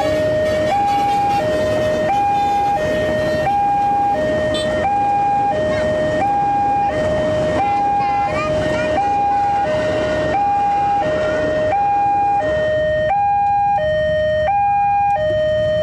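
Railway level-crossing warning alarm sounding with the barriers down, an electronic two-tone signal that alternates high and low, each tone held for about two-thirds of a second, over a steady rumble.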